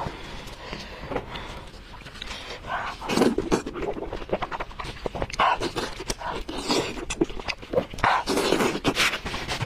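Close-miked eating sounds: chewing with irregular wet mouth clicks and smacks.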